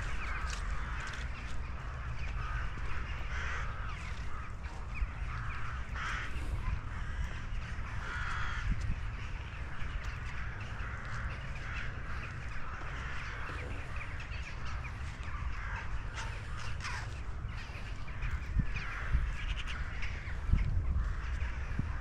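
Crows cawing repeatedly throughout, over a steady low rumble, with a few louder low thumps near the end.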